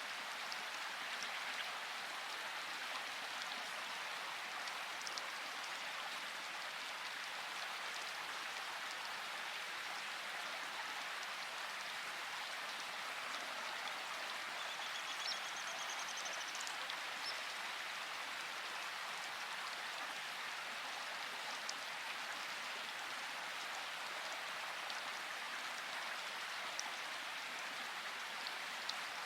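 Steady rainfall, an even hiss with scattered drops pattering. A brief faint high trill of rapid ticks comes about halfway through.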